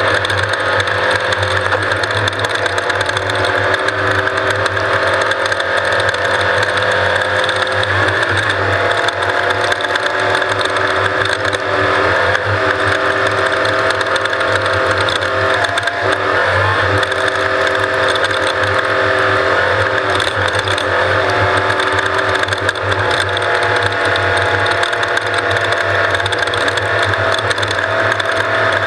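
Off-road race vehicle running at speed, heard on board: a steady, loud mechanical drone of engine and drivetrain whose pitch dips and recovers several times as the throttle changes.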